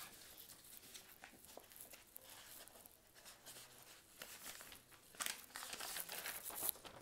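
Faint scratching and rustling of pen on paper as a figure is drawn, a run of quick strokes loudest about five to seven seconds in.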